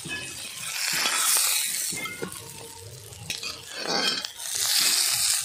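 Fish pieces frying in hot oil in an iron wok, the sizzle swelling about a second in and again near the end, with a metal spatula scraping and knocking against the pan as the fried pieces are lifted out.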